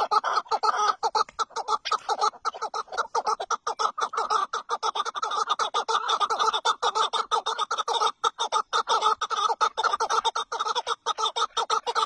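Chukar partridges calling: a fast, unbroken run of clucking, chattering calls.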